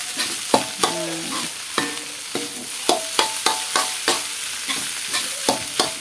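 Metal spatula scraping and knocking against a metal wok as egg fried rice is stirred and turned, over a steady sizzle of frying. The knocks come irregularly, about two or three a second, and some leave a brief metallic ring.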